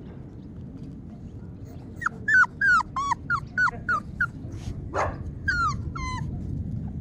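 A month-old Jindo-mix puppy whining: about ten short, high cries that each drop in pitch, starting about two seconds in. It is the distress whine of a puppy separated from its mother and calling for her.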